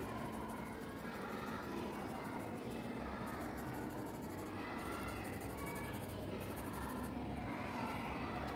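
Graphite pencil shading strokes scratching on drawing paper, over a steady low background hum.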